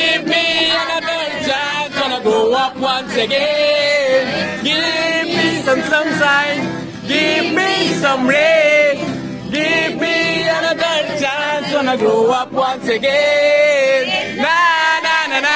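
A song with a male voice singing a wavering melody over instrumental accompaniment, with short breaks between phrases.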